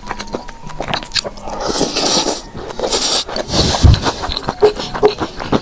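Close-miked eating sounds: chewing and crunching bites of food, with small clicks and scrapes of chopsticks and dishes throughout and a soft thump a little before the four-second mark.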